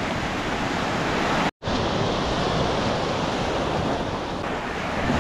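Small surf waves washing up a fine-pebble and sand shore, with wind buffeting the microphone. The sound is a steady rush that cuts out for an instant about one and a half seconds in.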